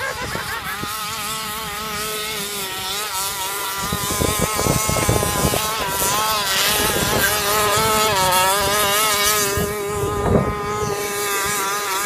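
Small petrol engine running, its pitch wavering up and down with the throttle.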